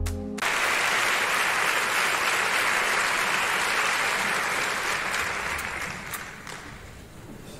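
Concert audience applauding, a dense steady clapping that starts suddenly just after a snatch of music cuts off, then dies away over the last couple of seconds.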